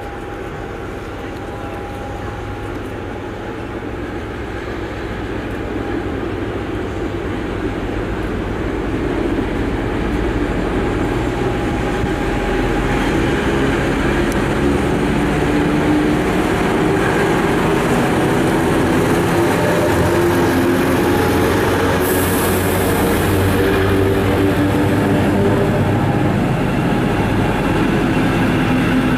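DR class V200 (Soviet-built M62 'Taigatrommel') diesel locomotive approaching with its passenger train, its two-stroke engine growing louder over the first ten seconds or so, then the coaches rolling past. A brief high hiss about 22 seconds in.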